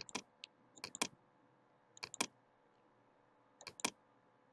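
Computer mouse button clicked four times, each click a quick press-and-release pair, spaced about one to one and a half seconds apart.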